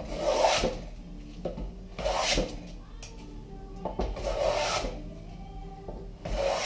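Hand plane shaving along the edge of a cedar post: four strokes, about two seconds apart, each a short rasping hiss of the blade lifting a curl of wood.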